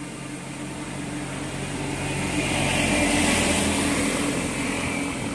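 A motor vehicle passing on the road: its engine grows louder to a peak about three seconds in, then fades away.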